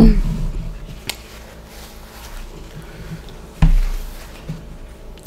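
Someone eating instant noodles close to the microphone. There are quiet mouth and utensil sounds, a dull knock at the start, and a louder knock with a low boom about three and a half seconds in.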